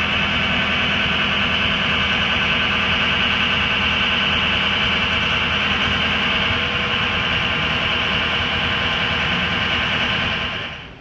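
John Deere 320D skid steer's diesel engine running steadily, with a bright high-pitched band of noise over its low drone. The sound cuts off abruptly just before the end.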